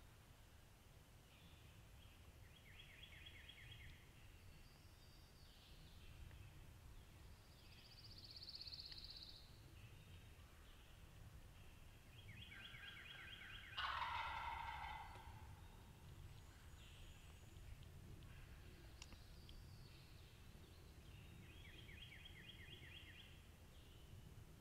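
Wild turkey gobbling in the distance, faint: several rattling gobbles, the loudest about halfway through.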